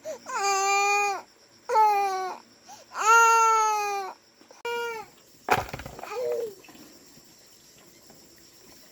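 Young child crying: four loud wails in the first five seconds, each held and falling slightly at the end. A sharp knock follows about five and a half seconds in.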